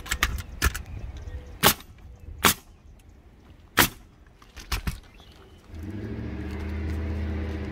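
Pneumatic coil roofing nailer firing nails through asphalt shingles: about six sharp, irregularly spaced shots over the first five seconds. Then a low, steady engine hum starts, swells and fades near the end.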